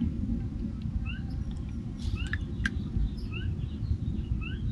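A bird's short rising call note, repeated about once a second, over a steady low rumble; two sharp ticks come a little past halfway.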